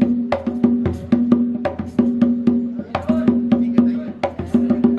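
A percussion set played in a quick, driving rhythm of sharp strikes, including wood-block-like clicks, over a steady low held note.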